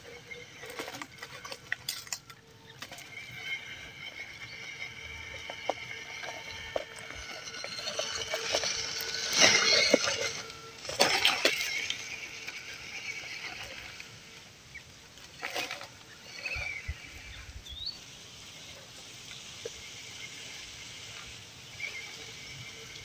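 A 1/12-scale MN99S Defender RC crawler driving over a dirt trail: its small electric 260 motor and geared drivetrain whining, with tyres crunching over soil and dry leaves. It is loudest around ten seconds in, then fades as the truck moves away.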